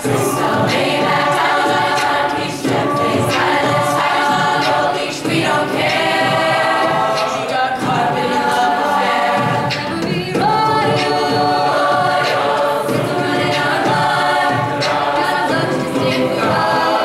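Large mixed choir of high-school students singing a cappella in several-part harmony, in held phrases with short breaks between them.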